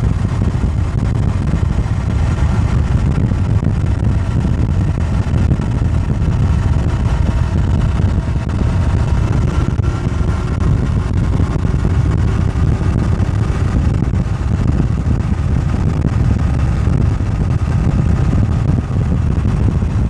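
Steady low rumble of wind and road noise on the microphone of a moving bicycle.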